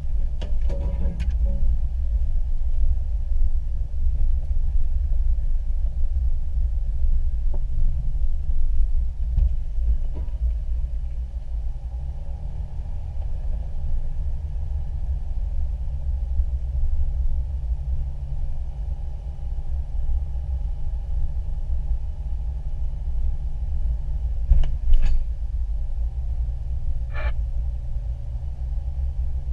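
Off-road vehicle driving slowly over a rough sandy trail, heard from inside the cab: a steady low rumble of engine and tyres, with a few brief knocks and rattles near the start and again near the end.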